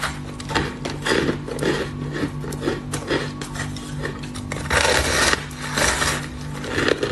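A block of soft, frosty ice being bitten and chewed: a run of crisp crackles and crunches, loudest in two bites about five and six seconds in, over a steady low hum.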